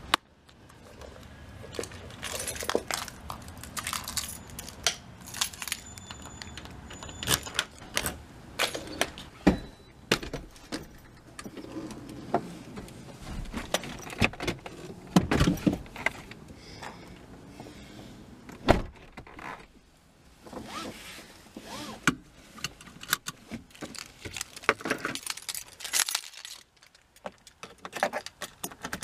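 Keys jangling amid a run of irregular clicks, rattles and knocks from someone handling things while getting into a car, with a louder knock about halfway through.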